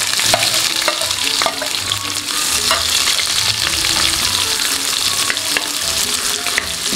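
Sliced onions sizzling as they fry in hot oil with whole spices in a pressure cooker pot, with a steel spoon clinking against the pot now and then as they are stirred.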